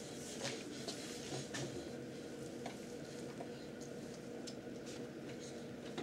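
Faint room tone with a steady low hum and scattered light taps and rustles.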